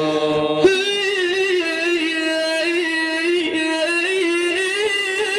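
A male singer of Islamic praise songs (madih) holding one long, wavering sung note, which begins sharply about half a second in.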